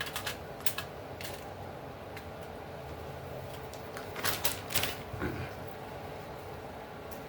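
Light clicks and taps of handling during food preparation: a few in the first second and a short cluster about four seconds in, over a steady low hum.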